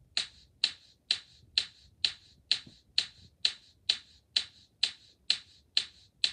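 A steady beat of sharp, snap-like clicks, about two a second, each with a short ringing tail.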